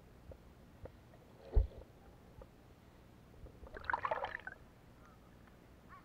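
Splashing water, a short burst about four seconds in, with a single dull thump about a second and a half in.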